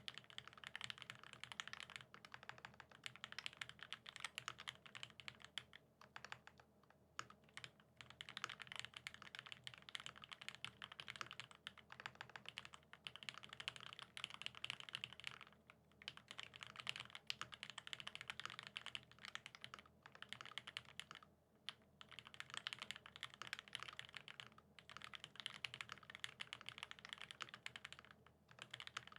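Steady fast typing on a Satisfaction75 mechanical keyboard: lubed vintage Cherry Top SP Star linear switches in a top-mounted brass plate, under GMK Shoko keycaps, giving a dense run of keystroke clicks with a few short pauses.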